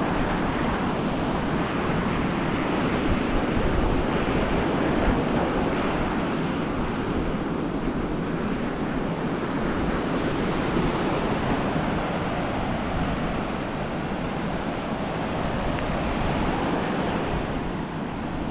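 Ocean surf breaking and washing up a sandy beach, a steady rush that swells a little now and then, with wind buffeting the microphone.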